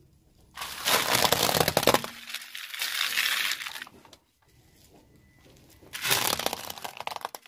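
Aluminium foil tray and bead necklaces crushed under a car tyre: dense crackling and crinkling with sharp cracks, in a long bout from about half a second in and a second, shorter bout near the end.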